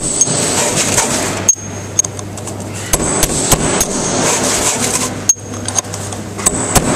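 Hammer blows on a steel drift driving a stubborn inner bearing ring out of a Mercedes W140 front wheel hub: sharp metal-on-metal strikes at an irregular pace, roughly one to two a second, some with a brief high ring.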